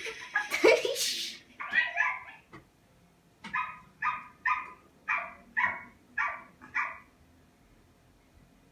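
Small dog yipping: seven short, high yaps in an even series about half a second apart, after a couple of brief noises at the start.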